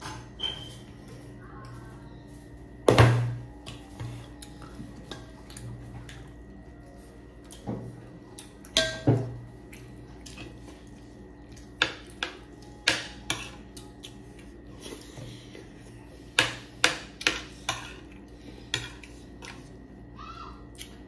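Tableware clinking during a meal: a metal spoon tapping and scraping on a ceramic plate and dishes knocking together, in scattered clicks and knocks, loudest about 3 and 9 seconds in. A faint steady hum sits underneath.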